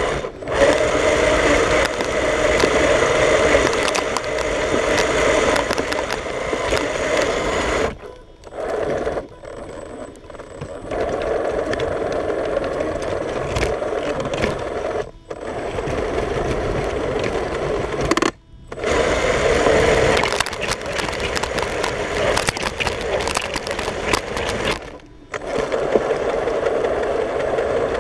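Radio-controlled snow-plow vehicle's motor and gears whirring as it pushes a snow-shovel blade through snow. It runs in spurts, stopping and starting several times.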